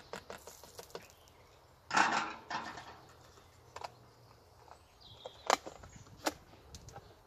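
Frying pan of oil-soaked peppers set down on a metal fire-pit grill: a brief loud clatter and hiss about two seconds in, fading within a second, then scattered sharp clicks.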